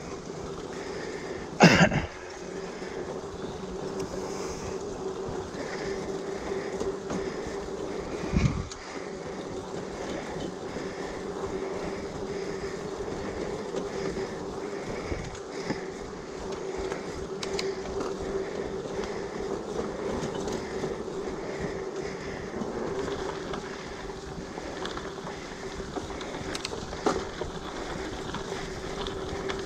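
Giant Fathom mountain bike rolling along a steel-mesh boardwalk and onto a dirt trail: a steady hum from the tyres and drivetrain, with two heavy bumps, one about two seconds in and one about eight seconds in.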